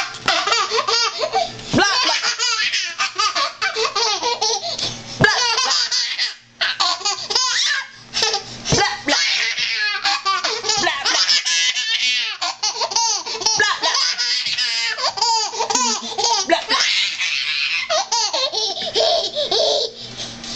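A toddler laughing hard, in long, almost unbroken runs of giggles, with a couple of short breaths between them.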